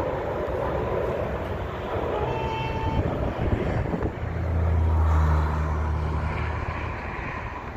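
Air Canada Boeing 787 Dreamliner on final approach with landing gear down, its jet engines making a steady rushing rumble that grows louder and deeper about four seconds in, when a low drone takes over. A short high tone sounds briefly about two seconds in.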